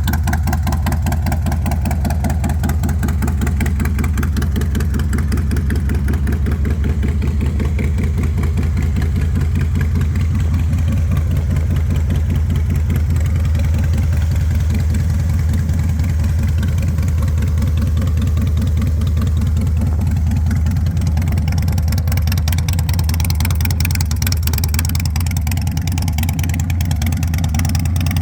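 Harley-Davidson Night Train's fuel-injected Twin Cam V-twin idling steadily, with an even, fast pulse from its firing strokes.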